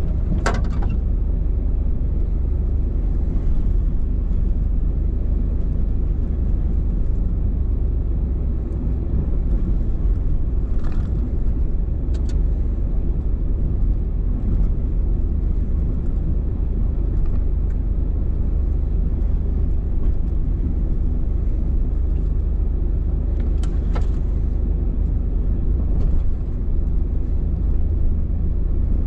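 Steady low rumble of a truck's engine and tyres heard from inside the cab as it drives slowly along a snow-covered road, with a few faint knocks.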